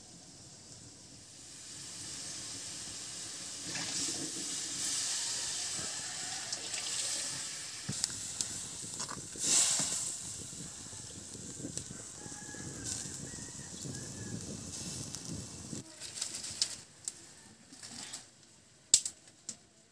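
Mustard greens simmering in an aluminium wok over a wood fire, a steady hiss with a ladle stirring and knocking against the pan. Near the end, sharp cracks and knocks as dry sticks are handled for the fire.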